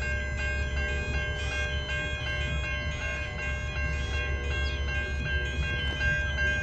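Siemens Type 3 electronic level crossing bells ringing, a high-pitched tone repeating about three times a second, over the low rumble of an arriving V/Line VLocity train.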